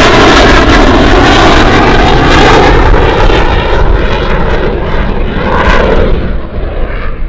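F/A-18 fighter's twin jet engines climbing away after takeoff: loud jet noise with a slowly wavering tone. It fades from about halfway through and loses its high hiss near the end.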